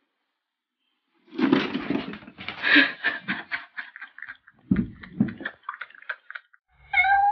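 Cardboard box rustling and scraping as two cats scuffle in and on it, irregular scratchy rustles with a couple of dull thumps partway through. Guitar music starts just at the end.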